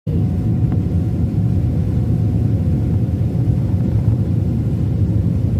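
Airplane landing: a loud, steady low rumble with a faint steady whine over it.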